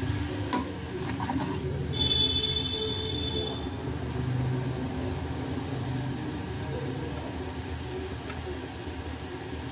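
Steady low hum of kitchen cooking at the stove, with a sharp click about half a second in and a brief high ringing tone around two seconds in.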